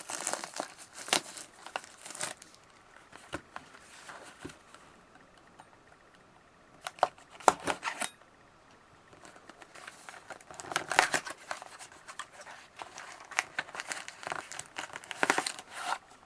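Plastic wrapping on a trading card box being torn and crinkled off, in several bursts of crackling with short clicks and quieter pauses between.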